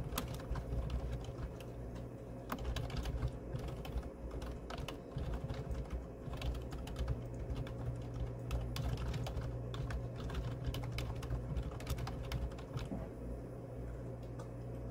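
Typing on a computer keyboard: a run of quick, irregular key clicks that thins out near the end, over a steady low hum.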